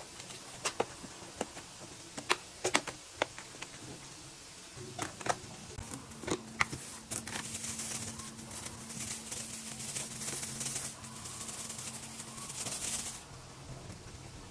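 Plastic food tub's lid being pressed shut, a series of sharp snaps and clicks, followed by a plastic bag crinkling for several seconds.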